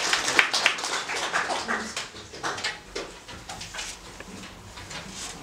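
Audience applause: scattered hand claps that thin out and die away over the first few seconds.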